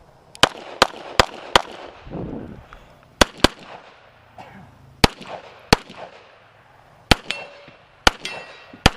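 Handgun shots fired in a practical shooting stage: about eleven shots in irregular groups, four quick ones in the first second and a half, then pairs and single shots spread through the rest. Some of the later shots are followed by a brief metallic ringing, typical of hit steel targets.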